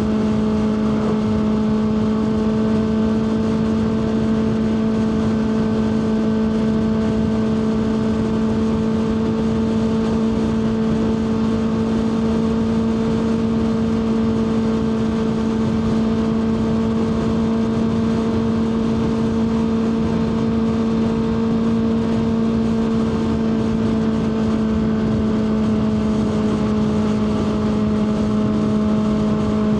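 Kawasaki ZX6R 636's inline-four engine running at a steady, fairly high rpm while cruising, with a constant even pitch and wind and road noise underneath.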